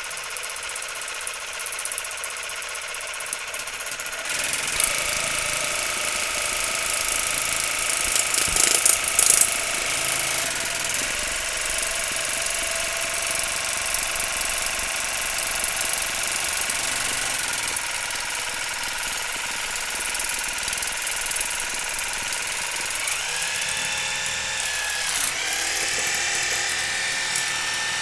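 MySmile LP221 water flosser running, its pump motor buzzing steadily under a hissing water jet. It gets a little louder a few seconds in, and near the end its pitch bends up and down several times.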